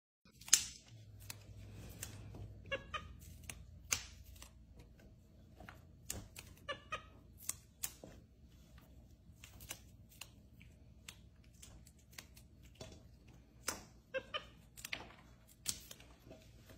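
Green beans being snapped and trimmed by hand over a steel bowl and metal tray: an irregular string of sharp snaps and clicks, the loudest about half a second in. A few short squeaky calls, likely from the capuchin monkey, come in between, around three, seven and fourteen seconds in.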